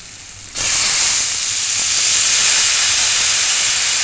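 Hot oil in a kadai breaks into loud sizzling about half a second in, as a heap of fresh neem flowers is dropped in among frying eggplant pieces. The hissing sizzle then holds steady.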